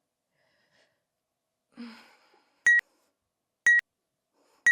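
Workout interval timer counting down at the end of a rest: three short high beeps, evenly spaced a second apart, beginning a little under halfway through. Just before them there is a short audible breath out.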